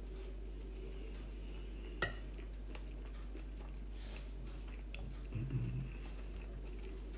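A metal fork clinks once against a ceramic bowl about two seconds in, set down between bites, while a person chews quietly over a low steady room hum.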